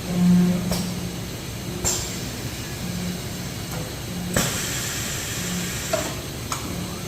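Blister packaging machine running: a low hum that swells and fades about once a second, with several sharp clacks and a hiss about midway.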